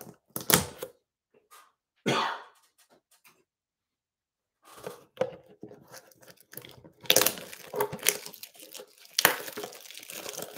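Plastic shrink wrap on a trading-card blaster box being slit, then crinkled and torn off. A few short crackles come first, then nearly continuous crinkling and tearing from about halfway through, with loud tears twice near the end.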